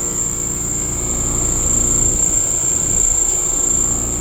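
Running 5-ton Trane Choice 14 heat pump outdoor unit: a steady hum and rumble of the compressor and condenser fan that swells a little in the middle. A steady high-pitched insect drone sits above it.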